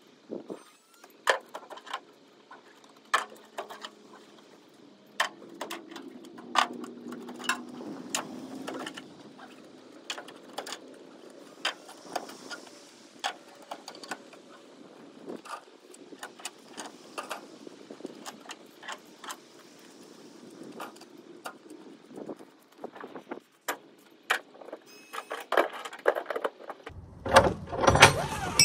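Ratchet straps being released on a flatbed trailer: scattered metallic clicks and clanks from the ratchet buckles and hooks, with a louder, closer clatter near the end.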